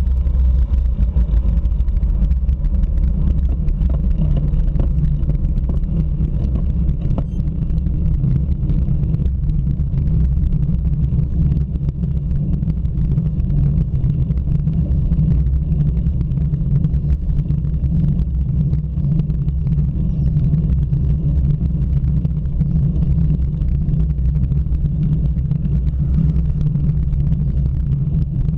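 Steady low rumble of wind buffeting and road vibration picked up by a bicycle-mounted camera.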